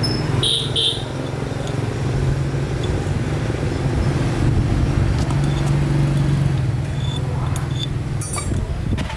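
A motor running with a steady low hum that wavers slightly in pitch, with a few light metallic clinks near the end.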